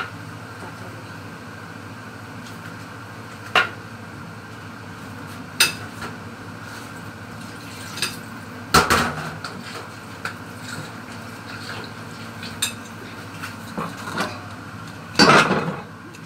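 Kitchen dishes and utensils clinking and knocking: scattered sharp knocks, the loudest about nine and fifteen seconds in, over a steady low hum.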